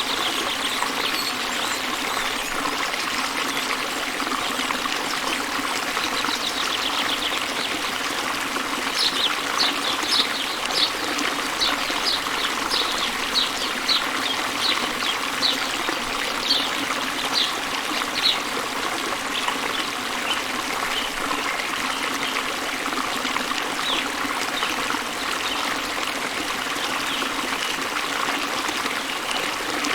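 Waterfall water rushing steadily. A bird repeats short, high chirps, about two a second, from about a third of the way in to just past halfway, with a few fainter chirps later.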